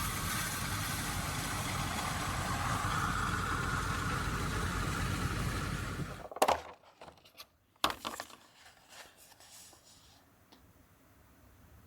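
A steady rumble with hiss, of the engine or traffic kind, that stops abruptly about six seconds in. Two sharp knocks follow about a second and a half apart, then a few faint clicks and quiet room tone.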